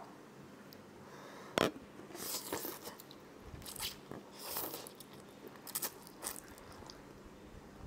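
A person eating instant noodles close to a clip-on microphone: a sharp click about one and a half seconds in, then wet slurping and chewing in short irregular spurts.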